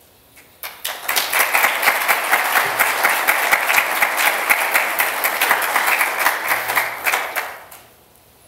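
Audience applauding: the clapping starts about a second in, holds steady, and dies away near the end.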